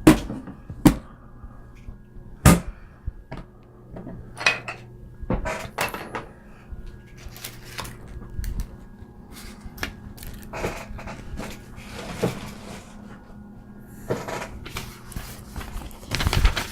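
Irregular clicks and knocks of hard objects being handled and set down on a work surface, over a faint steady hum.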